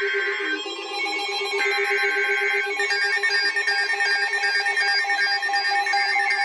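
Emergency Alert System SAME header data bursts, harsh electronic screeching, giving way about three seconds in to a rapidly pulsing electronic alert beep that announces an incoming warning.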